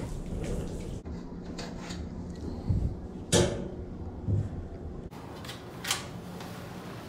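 Perforated metal cooking basket knocking against the pots and steel sink: four separate clunks, the loudest about halfway through, over a steady low hum.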